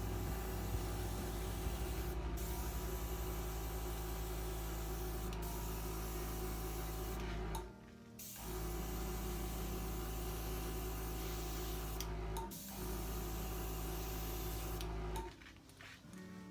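Hair dryer running steadily, blowing wet acrylic pour paint across the canvas to spread and break up the colours; it cuts out for a moment about halfway, dips briefly later, and switches off shortly before the end.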